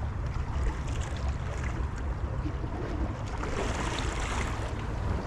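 Sea water washing and lapping against jetty rocks, with wind buffeting the microphone as a steady low rumble.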